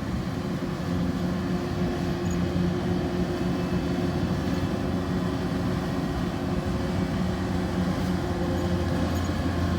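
Tractor engine running steadily at an even speed, a low hum with no change in pitch.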